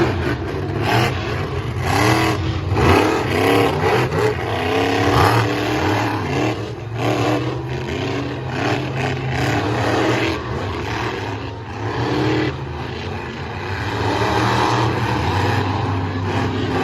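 Two monster trucks' supercharged V8 engines revving hard as they race, the pitch swinging up and down over and over for most of the run, then settling into a steadier drone near the end.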